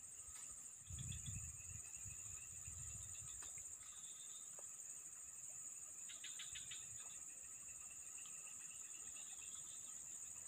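Steady high-pitched drone of an insect chorus, with a faint low rumble a second or two in and a short chirping trill around the middle.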